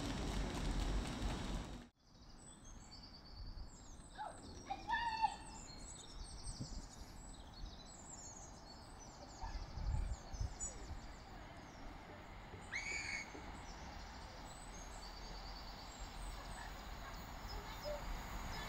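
Wild birds chirping and trilling, several calls overlapping. It opens with a couple of seconds of low train rumble that cuts off suddenly. Near the end the Network Rail Class 950 unit's approach grows steadily louder.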